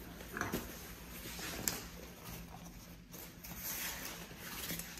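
Cordura nylon backpack and its straps rustling as it is lifted and swung onto the wearer's shoulders, with a sharp light click about one and a half seconds in.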